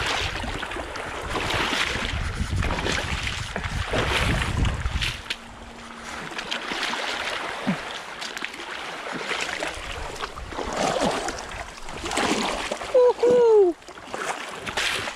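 Legs wading through knee-deep seawater, splashing and sloshing at a walking pace, with wind buffeting the microphone for the first five seconds. Near the end comes a short, loud cry in two parts, falling in pitch.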